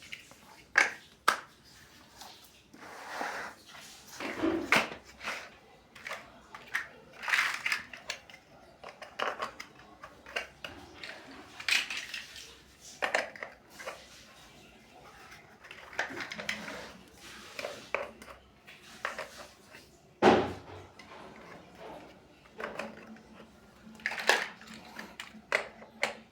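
Plastic building bricks clicking and clattering in irregular taps as pieces are handled and pressed together.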